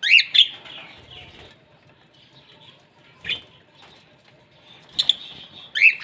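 Small pet parrots, budgerigars among them, giving sharp rising chirps: a loud pair at the start, one a little past three seconds and two more near the end, over soft steady chattering.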